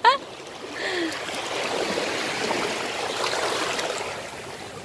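Shallow surf washing up over the sand: the rush of a small wave swells about a second in and fades away near the end.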